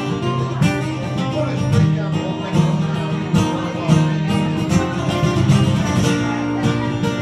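Solo acoustic guitar playing an instrumental passage of a folk song, picked notes over a steady bass line, with no singing.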